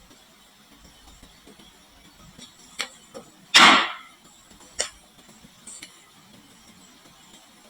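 Marbles on a wooden marble run clicking and clattering: a few single clicks and one louder, longer clatter about halfway through.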